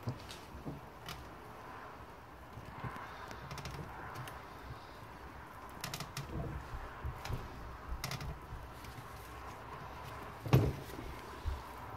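A steel bar levering a suspension arm's pivot pin back and forth in a bench vice, with scattered metallic clicks, creaks and knocks as the pin is worked loose from its heat-softened rubber bush. A heavier thump comes about ten and a half seconds in, with a smaller knock just after.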